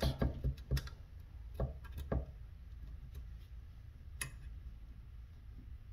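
Light metal clicks and taps from working the spring plunger out of the spring tube of a Remington Sportsman 48 shotgun. There are a few in the first two seconds and one sharper click about four seconds in.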